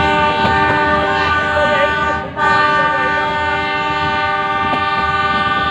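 Horn of a metre-gauge passenger train sounding two long blasts, with a brief break a little over two seconds in, over the rumble of the train running.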